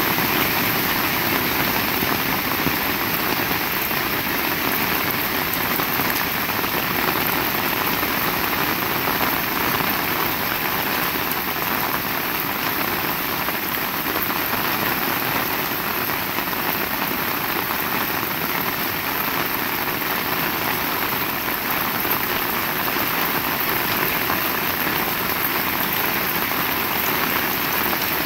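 Heavy rain falling steadily, an even hiss with no thunder claps.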